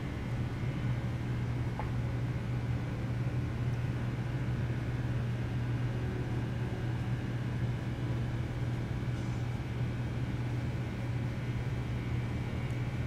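A steady low hum with a light hiss, unchanging throughout: background room or recording noise, with no distinct action sound standing out.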